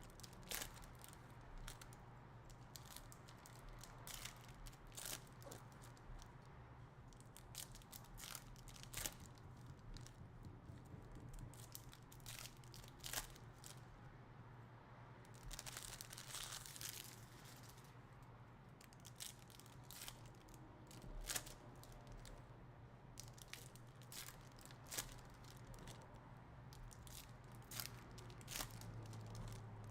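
Faint crinkling and tearing of foil trading-card pack wrappers and handling of cards, with scattered sharp clicks throughout and a longer tearing rush about halfway through.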